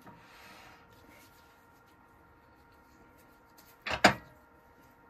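Two sharp knocks in quick succession about four seconds in, as a small turned wooden lid is handled and fitted back onto the piece on the woodturning lathe.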